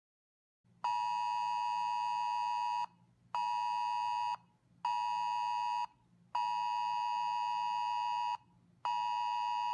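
Smartphone Wireless Emergency Alert tone, a harsh two-tone note near 1 kHz, sounding an earthquake alert. It plays in a repeating pattern of one long blast of about two seconds and two short one-second blasts, with brief gaps between them.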